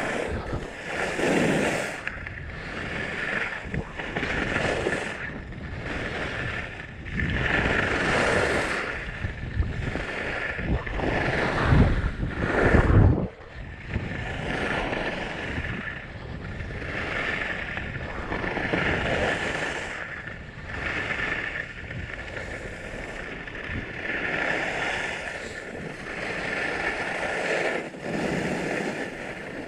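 Skis carving turns on packed snow: a swish of edges scraping the snow that swells and fades with each turn, about every one to two seconds. Wind rumbles on the microphone throughout, loudest about twelve seconds in.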